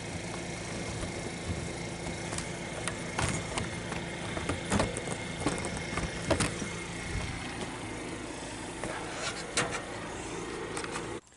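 A vehicle on the move: steady engine and road noise with scattered clicks and rattles. It cuts off abruptly near the end.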